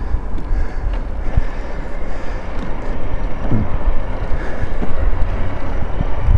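Wind buffeting the microphone of a handlebar-mounted camera on a moving e-bike, a loud steady rumble, with a few short knocks as the bike rides over the road.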